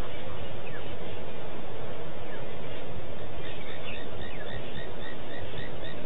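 Steady outdoor background hiss and rumble, with a bird calling a rapid series of short repeated notes, about three to four a second, starting about halfway through.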